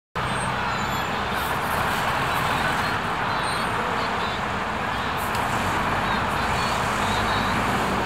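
Street traffic: a steady noise of cars driving through a busy city intersection.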